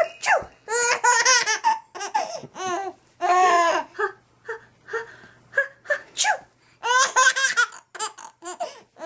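A baby laughing hard in repeated high-pitched bursts of squealing giggles, with short breaths between them; the longest bursts come about one, three and seven seconds in.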